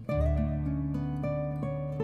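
Instrumental background music: sustained pitched notes over a low held bass, with a louder passage coming in just after the start.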